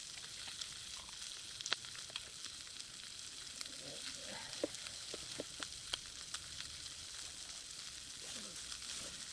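Chicken skin and bean sprouts sizzling in a frying pan over a camp stove: a steady hiss with scattered sharp pops.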